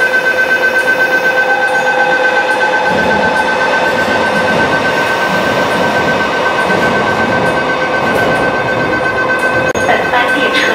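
MTR Ma On Shan Line electric train running slowly through Tai Wai station, its rumble swelling in the middle. A steady high-pitched tone holds throughout.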